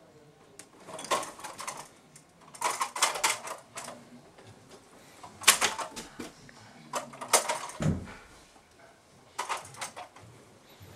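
Computer keyboard typing in short bursts of rapid clicks, five bursts a second or two apart, with a single dull thump about eight seconds in.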